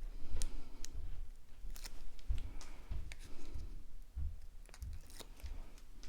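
Cardstock pieces being handled on a work surface: scattered light taps, clicks and rustles of paper.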